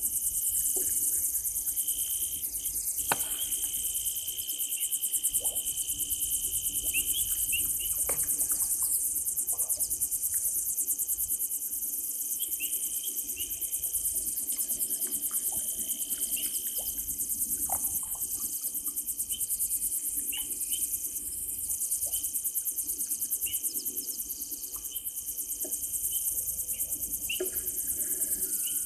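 Night insect chorus: a dense, steady, high-pitched trill. Under it runs a fainter continuous tone, with short chirps and brief ticks scattered through.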